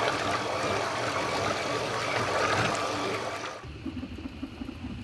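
A 3D-printed, water-cooled RC outboard motor, driven by a 540-size brushed electric motor through 2:1 gearing, running at speed with its propeller churning water in a bucket: steady rushing water with a faint motor whine. It cuts off abruptly about three and a half seconds in.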